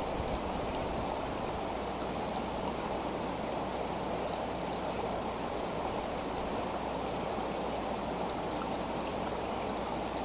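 Steady, even rushing noise with no distinct events, with a faint, thin, high-pitched steady tone over it.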